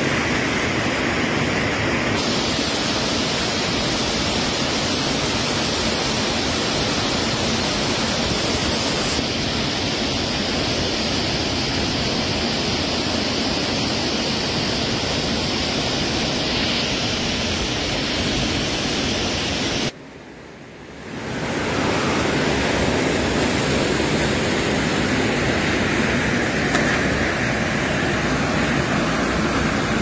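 Waterfall and whitewater cascades in a rock gorge, a steady loud rush of falling water. The rush briefly drops away about two-thirds of the way through, then returns.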